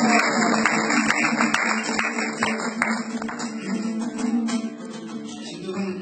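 Kazakh dombra strummed in a fast rhythm as an instrumental interlude between sung verses. The strokes come thick and loud for the first three seconds or so, then grow quieter and sparser toward the end.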